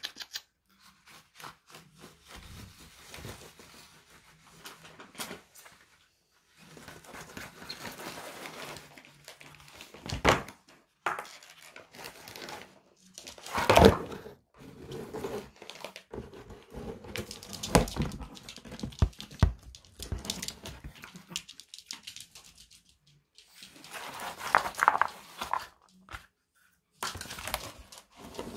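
A chihuahua moving about and handling a snack, heard as rustling, crinkling and tearing with scattered clicks. Several knocks stand out, the loudest about halfway through.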